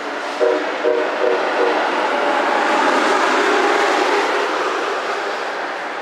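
Electric passenger train on the Northeast Corridor sounding its horn: four quick short toots, then a longer held blast, over the rising rush and clatter of the train, which peaks about halfway through and then fades.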